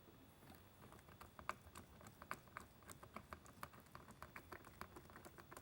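Faint, irregular light clicks and taps, a few a second, of small parts being handled while working on the minibar's strobe assembly with a screwdriver.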